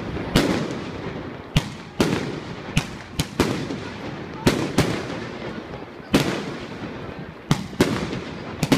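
New Year's Eve fireworks and firecrackers going off: about a dozen sharp bangs at irregular intervals, sometimes two or three in quick succession, each with an echoing tail.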